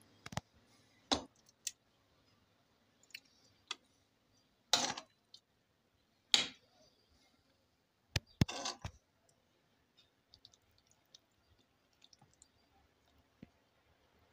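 Metal spoon clicking and knocking against the pans while spooning stuffing into fried aubergines: a scatter of sharp separate knocks, the loudest about five and six and a half seconds in and a quick few around eight and a half seconds, then only faint ticks.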